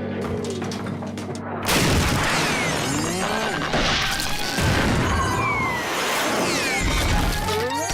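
Cartoon soundtrack: music, then a sudden loud crash about a second and a half in, followed by a busy stretch of sound effects and music with sliding, whistle-like tones.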